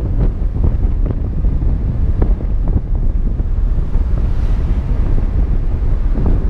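Wind buffeting the microphone of a camera on the hood of a moving car: a heavy, steady low rumble broken by brief gusty thumps.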